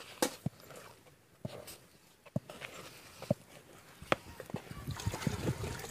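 Thick ragi (finger-millet) dough being stirred and pressed in an aluminium pot: scattered soft knocks and clicks of the stirrer against the pot, coming faster toward the end.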